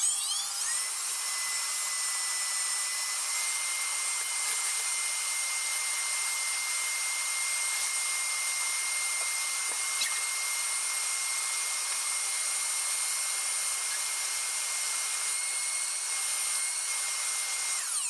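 Old canister vacuum cleaner's motor running with a steady high whine as its hose nozzle sucks dust out of a robot vacuum's brush compartment. It spins up at the start, and its pitch steps up slightly for a couple of seconds near the end.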